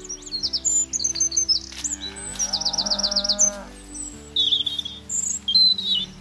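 A cow mooing once, starting about two seconds in, the call sliding down in pitch at its end, with small birds chirping and trilling high around it. Background music plays underneath.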